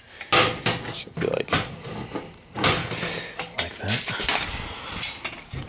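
Metal exhaust parts being handled on a steel workbench: irregular clinks, knocks and scrapes.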